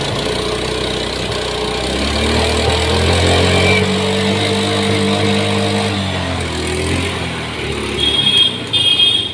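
Honda Activa scooter's single-cylinder four-stroke engine running, revved up about two seconds in, held for a few seconds and let back down to idle. The engine is smoking heavily from the exhaust, worn at 95,000 km and due for engine work.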